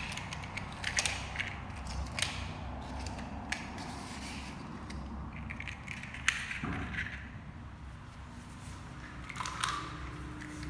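Irregular sharp clicks and rattles of small plastic mechanisms over a low steady hum.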